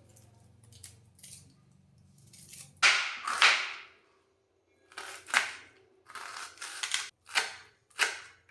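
Kitchen knife chopping onion finely on a cutting board: a longer crunching cut about three seconds in, then sharp chops about twice a second.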